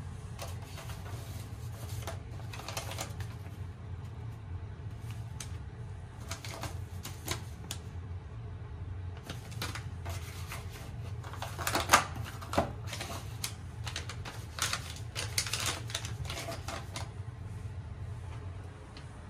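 Irregular clicks and clatters over a steady low hum, in clusters, with the sharpest click about twelve seconds in.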